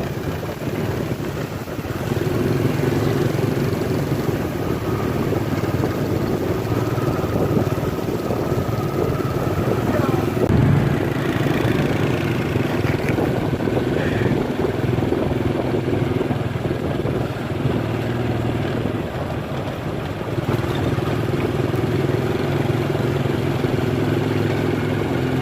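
Motorcycle engine running steadily under way, with wind noise; its note shifts a few times as the speed changes.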